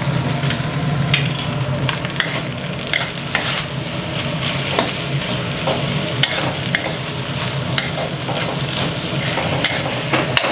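Fried rice sizzling in a hot wok while a metal spatula stirs and scrapes it, with scattered clinks of the spatula against the wok.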